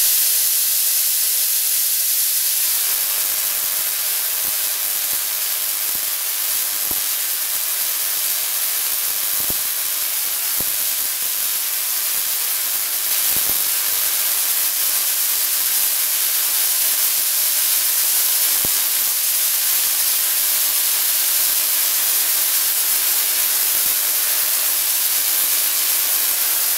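Homemade spark-gap Tesla coil running: a steady, loud hissing buzz from its discharges with a faint hum beneath, broken by a few sharp snaps.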